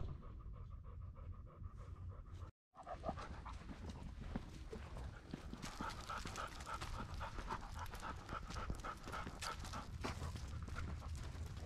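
A vizsla panting steadily as it walks on a leash, with footsteps on a leaf-littered dirt path. The sound drops out for a moment about two and a half seconds in.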